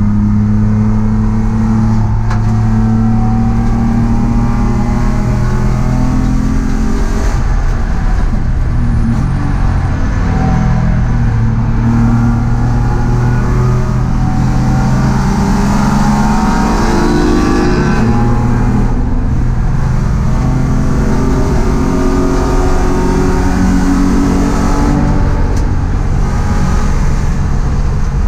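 Race car's engine heard from inside the cockpit under full racing load, its note climbing and falling several times as it accelerates and slows through the course, over a constant rumble of road and wind noise.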